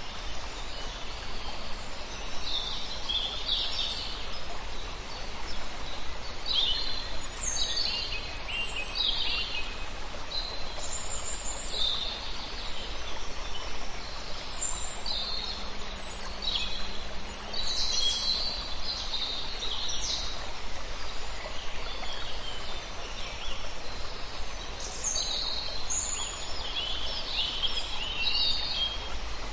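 Birds chirping, with many short, high calls following one another closely throughout, over a steady background hiss.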